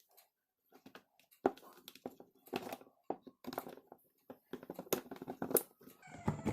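Irregular clicks and light knocks of drill internals being handled and fitted by hand: a small ball being dropped in and the armature and cam holder pushed into the housing.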